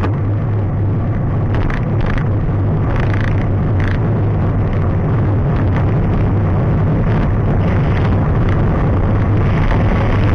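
Steady wind rumble and rolling noise on a mountain-biker's camera microphone during a ride, with a few brief higher-pitched rattles or clicks.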